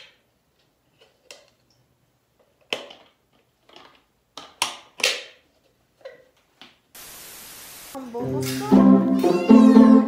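Sparse clicks and knocks of a hard plastic cordless-vacuum dust bin being handled and tapped over a sink, the sharpest around three and five seconds in. A second of steady hiss follows, then background music with a cat meowing near the end.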